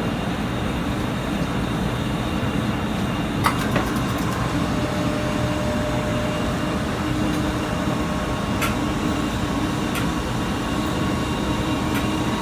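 Steady rumbling hum of room air conditioning, with a few light clicks.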